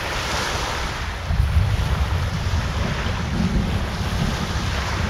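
Strong storm wind buffeting the microphone over a steady hiss of wind and surf. The low buffeting gets stronger about a second in.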